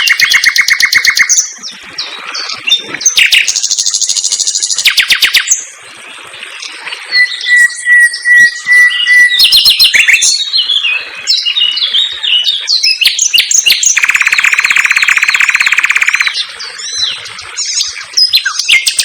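Common nightingale singing a loud, varied song of fast repeated-note trills and quick chirping phrases, with a long steady whistle about seven seconds in and another long rapid trill about two-thirds of the way through.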